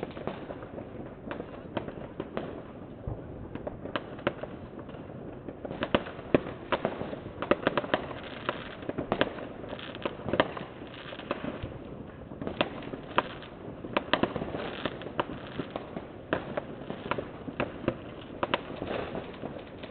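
New Year's Eve fireworks and firecrackers going off all around: many sharp bangs and pops at irregular intervals, thickest through the middle of the stretch, over a continuous background crackle.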